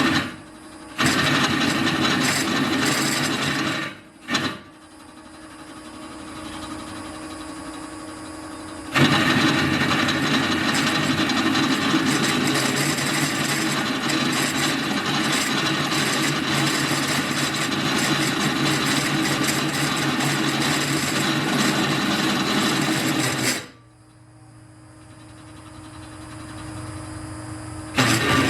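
Drill press cutting into steel, with a rough rasping cut that comes in stretches. There are short cuts in the first few seconds, then one long unbroken cut of about fourteen seconds, starting about nine seconds in. Between cuts the machine keeps running more quietly.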